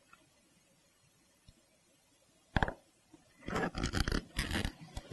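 Near silence, then one sharp click, then a run of scraping and crunching rubs as a leather-covered seat cushion on its frame is shifted and turned over on a workbench.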